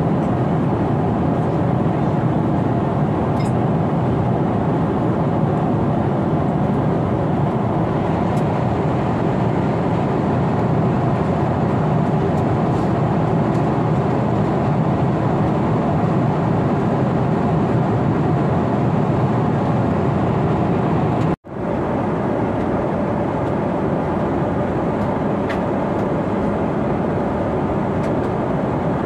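Steady cabin noise of a Boeing 777-300 in cruise: an even, low rush of airflow and GE90 engine noise heard from a window seat beside the engine. It cuts out for an instant about two-thirds of the way through, then carries on slightly quieter.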